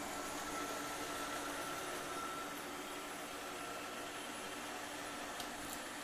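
Midea M7 robot vacuum running as it cleans the floor: a steady whir of suction fan and brushes with a thin high whine that fades about halfway through as it moves away.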